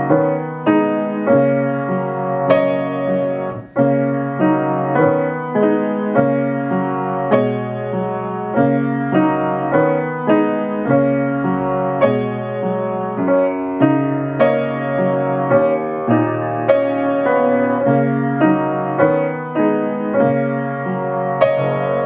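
Grand piano played four hands, a piano duet: a gentle piece with notes struck in a steady pulse, broken by a short pause about four seconds in.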